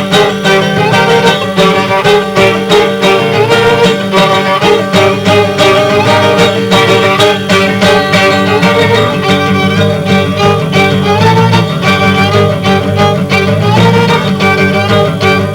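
Violin and guitar playing a jazz-fusion piece together: the violin carries a melody with sliding notes over a busy, quickly picked guitar part.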